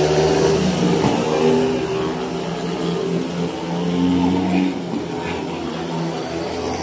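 Speedway motorcycles' 500 cc single-cylinder engines running hard around the track. The note shifts up and down as the bikes go through the bends.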